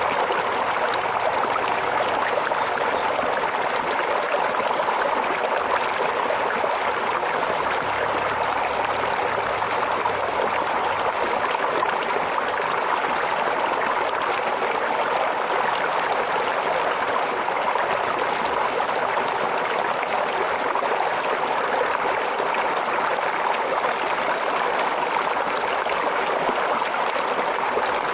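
Stream water flowing and babbling in a steady, even rush.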